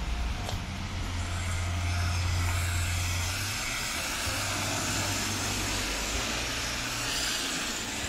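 Traffic on a rain-wet street: tyres hissing on wet asphalt as vehicles pass, over a low rumble.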